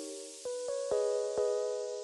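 Background music: sustained keyboard chords, a new chord struck every half second or so.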